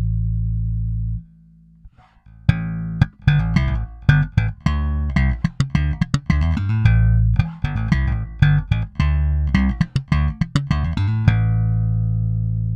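Fender Japan Jaguar electric bass played solo: a held low note is cut off about a second in, and after a brief pause comes a quick run of plucked notes. It ends on another long sustained low note.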